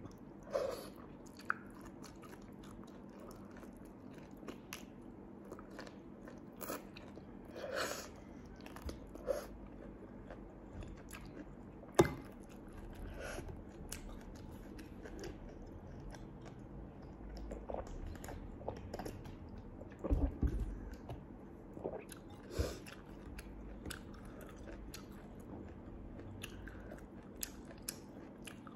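Chewing and biting on bimba sea snails and a sauce-soaked cabbage leaf, with wet mouth sounds and scattered small clicks. A sharp click comes about twelve seconds in, and a few louder knocks come around twenty seconds.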